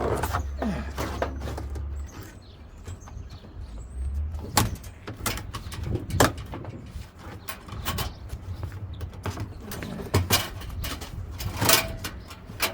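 Metal clanks, clicks and scraping of hand tools working the spring clamp off a front-load washer's rubber door boot, with several sharp knocks spread through. A low rumble in the first two seconds.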